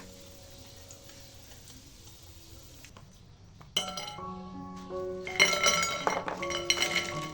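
Kitchen utensils clinking against dishes, with a quick run of clinks starting about five seconds in, over light background music.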